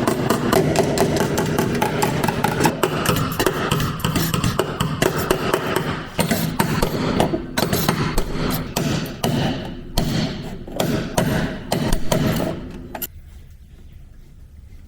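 Hammer strikes on a pickup truck cab's sheet metal during dent repair. The blows come in a fast, dense run at first, then as separate knocks a few a second, and stop sharply about two seconds before the end.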